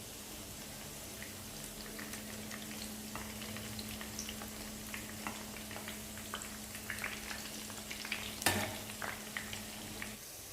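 Food frying in hot oil, with scattered crackles and pops that grow more frequent in the second half, and one sharp knock about eight and a half seconds in.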